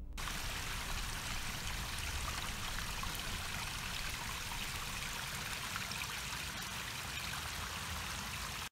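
Shallow rock-lined stream, water trickling steadily over stones; the sound cuts off suddenly at the end.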